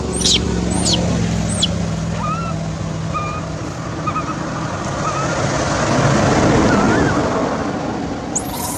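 Baby macaque squealing: three high, sharply falling squeals in the first two seconds, then a few faint short chirps. Under them a noisy rumble swells and fades, like a passing vehicle, and the squeals start again at the very end.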